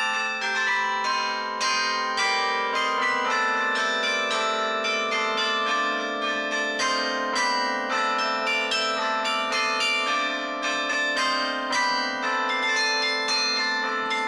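Carillon played from its baton keyboard: a melody of struck bells in quick succession, each note ringing on under the next, over a held low bell tone.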